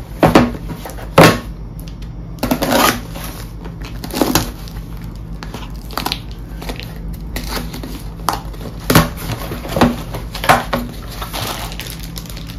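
Cardboard and plastic packaging of a boxed laptop charger being opened and handled: a series of irregular crinkles and sharp knocks. The loudest come about a second in and again around nine to eleven seconds in.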